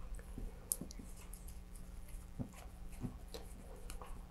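Faint scattered clicks and scratching of gloved hands handling a model rocket's cardboard body tube and thin plastic fin fairings, over a low steady hum.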